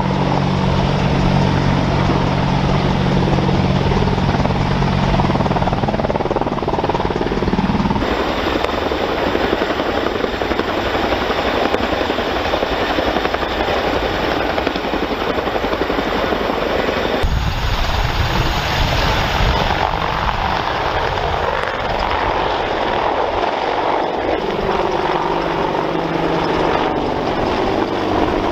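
AH-64 Apache helicopter running: steady turbine and rotor noise with a hum of low tones at first, its character changing abruptly several times where shots are cut together.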